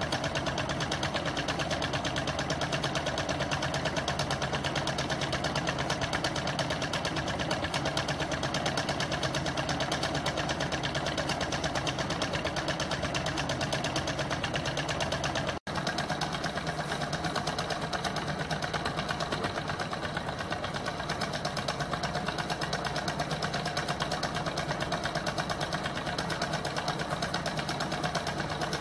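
Small home-built gamma-type Stirling engine, heated by a methylated-spirits burner, running steadily with a fast, even mechanical rhythm. The sound breaks off for an instant about halfway through.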